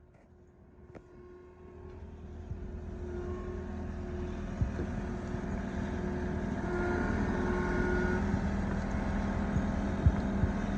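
A motor vehicle or machine engine running: it grows louder over the first few seconds, then holds steady, with a few sharp knocks over it.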